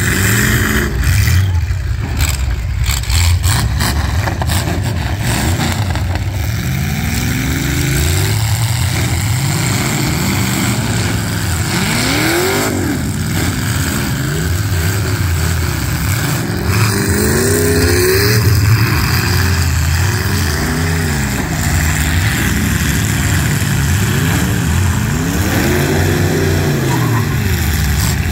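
Several demolition derby cars' engines revving up and down over one another, the pitch repeatedly rising and falling as the cars accelerate and back off.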